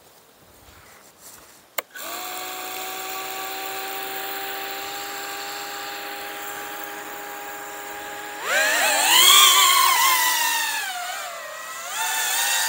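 FPV drone's brushless motors spinning up about two seconds in and holding a steady idle whine, then throttled up about eight seconds in, the whine jumping louder and higher and wavering up and down with the throttle, dipping and rising again near the end.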